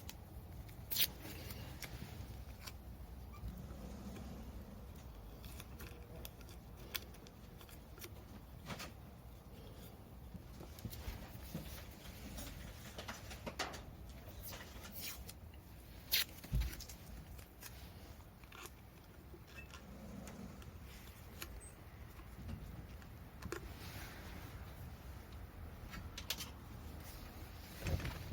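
Scattered light clicks and taps of hand tools and small parts being handled, over a faint steady low hum.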